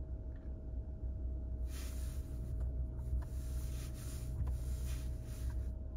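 Idling vehicle engine, a steady low rumble. A hissing noise comes in about two seconds in and stops near the end.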